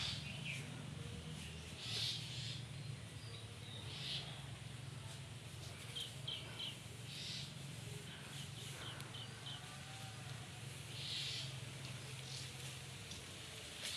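Birds calling outdoors: short high calls and quick chirp runs every couple of seconds over a steady low hum.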